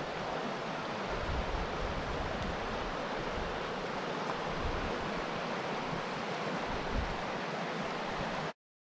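Shallow river running over stones in a riffle: a steady rushing, with now and then a low wind rumble on the microphone. It cuts off abruptly near the end.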